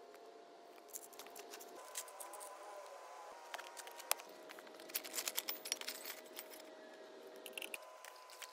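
Scattered light metallic clicks and clinks of hand tools being handled and set down on gravel, one sharp clink about four seconds in and a busier run of them soon after.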